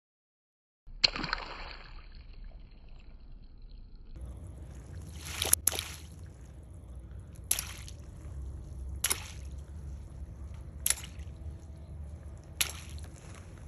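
Water-filled balloons bursting: a series of sharp pops, one about a second in and five more roughly every one and a half to two seconds, over a low steady rumble.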